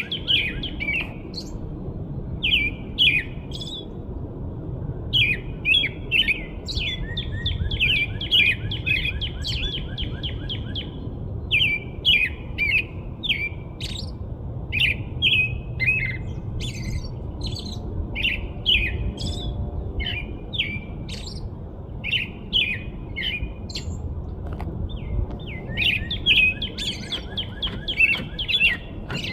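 Small birds chirping and twittering: many short, high chirps, some strung into quick runs, over a steady low rumble.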